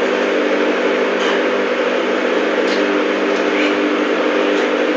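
Microwave oven running with a steady hum while it warms bread.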